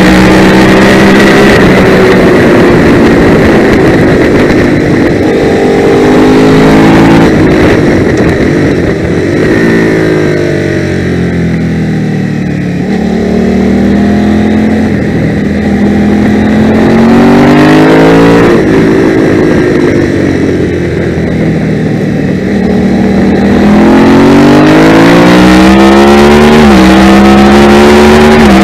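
650cc twin-cylinder race motorcycle engine at racing speed, accelerating up through the gears with quick upshifts. Twice it shuts off and the pitch falls as it slows and shifts down, then it pulls hard again, with another upshift near the end.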